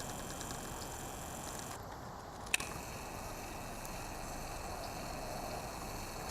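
Quiet outdoor background: a steady faint hiss and hum, with one sharp click about two and a half seconds in.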